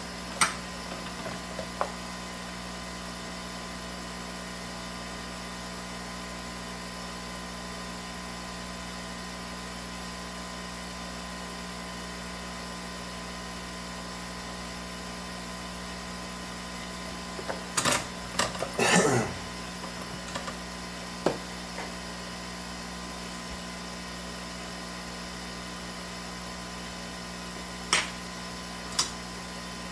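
Steady electrical hum of workbench equipment with several fixed tones. A few sharp clicks near the start and two near the end, and a short cluster of handling clicks and scraping over about two seconds past the middle.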